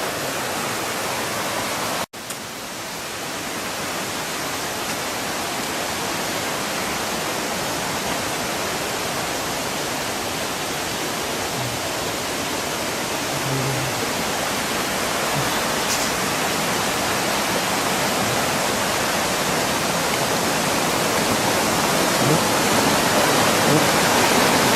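Steady rush of fast-flowing water from a mountain stream and waterfall running high, growing gradually louder. A very brief dropout about two seconds in.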